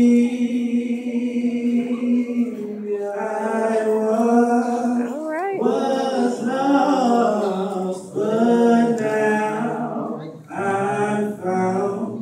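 Two male voices singing a cappella in phrases of a few seconds, with long held notes and a rising vocal run about five seconds in.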